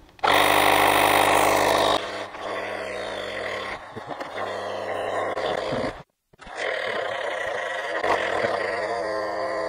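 AUXITO A501 portable tire inflator's compressor switching on and running steadily with a constant hum while inflating a car tire. It is loudest for the first two seconds, then a little quieter, and briefly cuts to silence about six seconds in.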